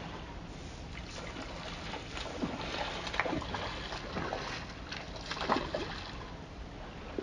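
Steady outdoor noise of wind and water, with a few short gliding cries and brief sharp sounds in the middle.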